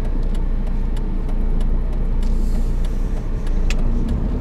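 Car engine and road noise heard from inside the cabin, with regular ticks that fit the turn signal clicking for a left turn.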